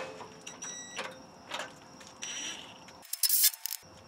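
Scattered light metal clicks and clinks of tool work on a vehicle's front suspension, with a short high-pitched rattle about three seconds in.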